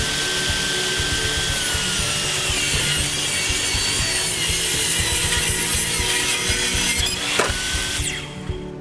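Table saw cutting a plywood floor panel, its blade whining steadily under load. The sound stops abruptly about eight seconds in.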